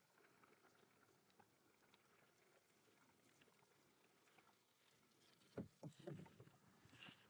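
Near silence, broken about five and a half seconds in by a short cluster of dull knocks.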